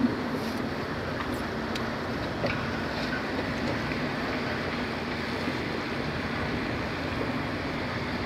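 Small boat's engine running steadily under way, with a constant low drone and a wash of water and wind noise, and a few faint clicks.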